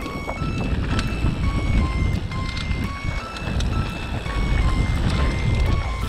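Steady low rumble of wind and tyres from a mountain bike riding fast down a dusty dirt trail, with scattered rattling clicks. Quiet electronic music of short beeping notes that step up and down in pitch plays over it.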